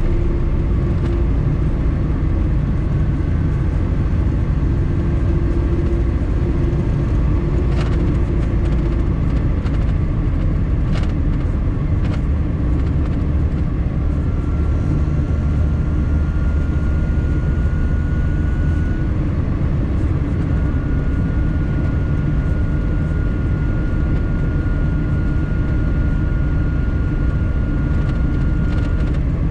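A 1.5-litre 68 hp Lada car driving hard near its top speed: a steady, loud drone of engine and road noise. A faint high whine comes in about halfway through, rising slightly and then holding, and a few light clicks or knocks are heard in the first half.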